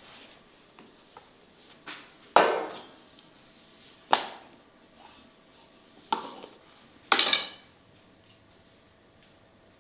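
Sharp clattering knocks of kitchen cookware and utensils: one small knock, then four loud ones a second or two apart, each ringing out briefly.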